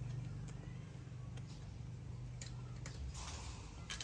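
Quiet room tone: a steady low hum with a few faint clicks.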